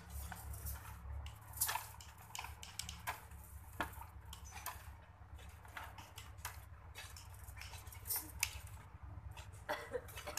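Irregular light clicks and ticks of wire fence mesh being handled and fastened to bamboo rails, with a few sharper clicks among them, over a steady low rumble.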